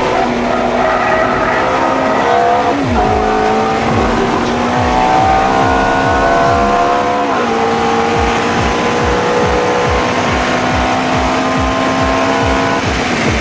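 Ferrari F430's V8 engine pulling hard under acceleration, its pitch climbing steadily through the revs and dropping sharply at two upshifts, about three and seven seconds in.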